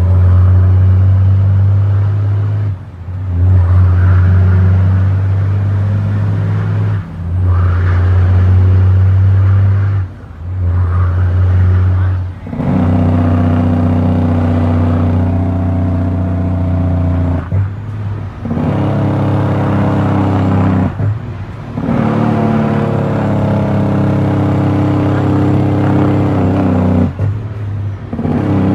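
Heavy diesel truck engine pulling hard, heard from inside the cab. The engine note drops out briefly about every three to five seconds, seven times in all, as the truck is shifted up through the gears of its manual transmission.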